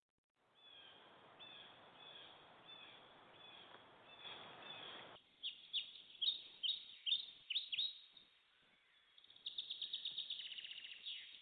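Faint birdsong: a songbird giving short repeated chirps over a light hiss, then louder downward-sliding calls about twice a second, then a rapid trill near the end.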